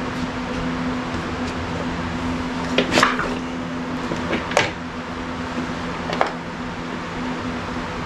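Three sharp mechanical clunks about a second and a half apart over a steady background hum, fitting kick-start strokes on a 1974 Yamaha Enduro motorcycle that has not yet fired.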